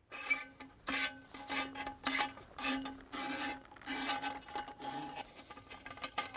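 Electrical cable being fed and pulled through a hollow aluminum lamppost, scraping against the metal in repeated strokes about twice a second.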